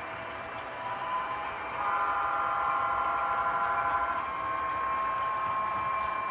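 HO-scale model locomotive's sound decoder sounding a multi-chime horn: one steady chord of about two and a half seconds starting about two seconds in, with a single note holding on a few seconds longer, over the steady running noise of the moving model train.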